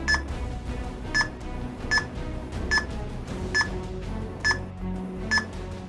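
Electronic door lock keypad beeping once per key press: seven short identical high beeps, about one every 0.8 s, as a code is entered, over background music.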